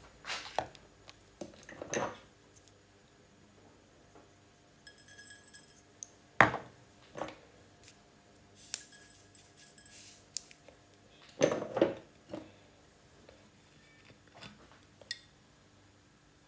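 Kitchen handling sounds: scattered clinks and knocks of dishes, utensils and containers being picked up and set down. A sharp knock about six seconds in is the loudest, with a quick cluster of knocks about twelve seconds in.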